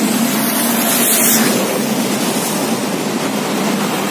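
Diesel-hauled passenger train passing directly beneath: the locomotive's engine and the coaches rolling over the track make a loud, steady rush of noise that swells slightly about a second in.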